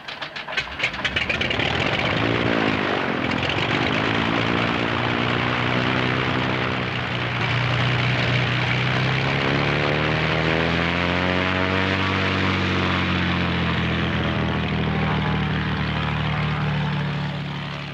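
Light propeller aircraft engine running, swelling up in the first second or two and then holding loud, its pitch slowly falling and rising.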